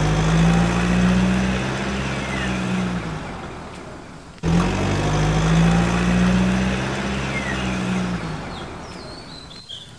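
A truck engine sound effect played twice in a row: a steady low engine hum over a rumble that holds for a few seconds and then fades away, starting again the same way about halfway through.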